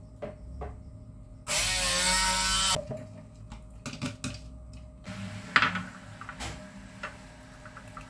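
Hand-held immersion blender running in one burst of a little over a second, its motor pitch wavering as it purées garlic and chilies in a plastic beaker. Scattered clicks and knocks follow, with one sharp knock about five and a half seconds in.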